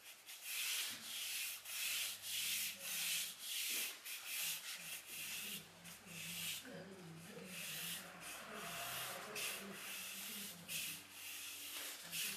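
Ink brush dragged across painting paper in short horizontal strokes, a scratchy rub with each stroke, about two a second; the brush is nearly dry (dry-brush technique), so its hairs scrape the paper.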